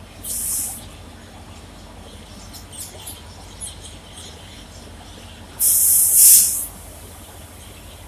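Compressed-air hiss from an Indian Railways WAP-4 electric locomotive: a short hiss about half a second in, then a louder, longer one of about a second near six seconds in, over a steady low hum. A few faint chirps come between the hisses.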